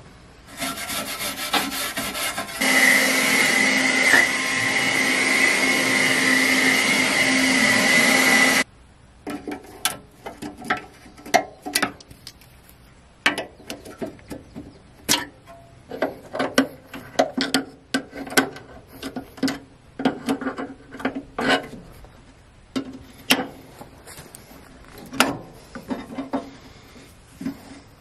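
A loud, steady rasping hiss for about six seconds, then metal tools working at the rusty battery-area hardware of a Ford 3000 tractor: irregular clicks and taps of needle-nose pliers on steel.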